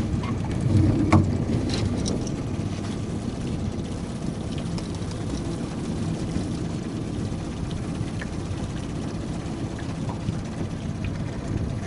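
Fishing boat's motor running steadily at slow trolling speed, a low even hum. About a second in, a few sharp clicks and a knock as fishing tackle is handled.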